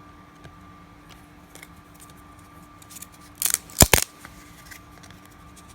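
Stiff trading cards being handled and peeled apart: soft scattered clicks, then a quick cluster of loud, crisp snaps about three and a half seconds in. The cards are stuck together from age and mold.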